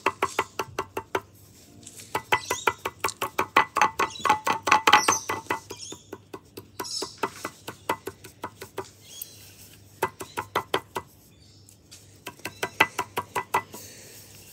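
Quick runs of tapping and clinking, about five or six strikes a second, in bursts of a second or a few seconds with short pauses between, as of a hand tool working in a small container.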